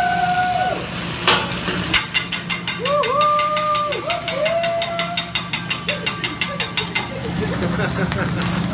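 A hibachi chef's metal spatula and fork clacking in a fast, even rhythm, about five strikes a second for some five seconds, over the steady noise of the flaming griddle. A few short calls from the diners come through.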